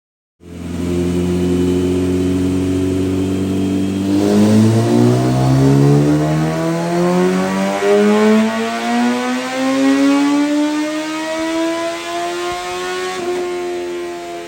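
Kawasaki ZX-14R's inline-four engine with a Vykon exhaust on a dyno run: it sounds in steadily for about four seconds, then the revs climb smoothly in one long pull for about nine seconds until the throttle is shut and the pitch drops.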